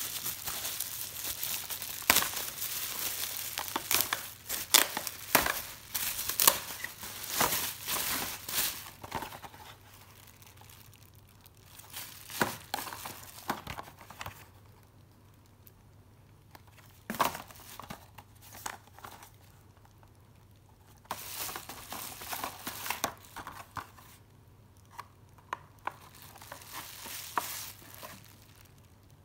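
Packaging being handled during an unboxing: irregular crinkling, rustling and crackling, busiest in the first several seconds, then in scattered bursts with quiet gaps.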